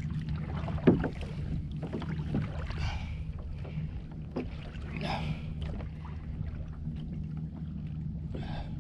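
Fishing kayak on the sea: water sloshing and splashing against the hull in bursts every few seconds over a steady low rumble, with small knocks of gear on the hull and a sharp thump about a second in.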